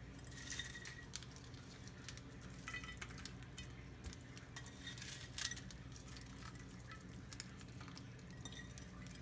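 Faint, scattered light clicks and clinks of pork cracklings (chicharon) being picked by hand from a ceramic bowl and dropped onto a plate of stew, over a low steady hum.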